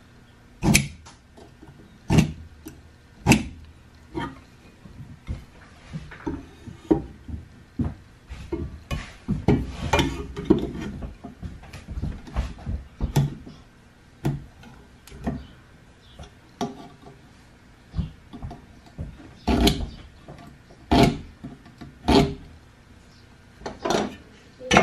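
A knife scoring a cut line across an old wooden press leg, drawn along a square in short, sharp scratching strokes about a second apart, with a denser run of scraping strokes around the middle.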